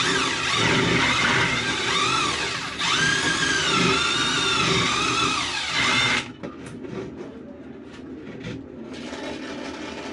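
Cordless drill-driver motor whining, its pitch rising and falling as the trigger is worked, for about six seconds before it stops. A quieter steady hiss follows, from a lit brazing torch.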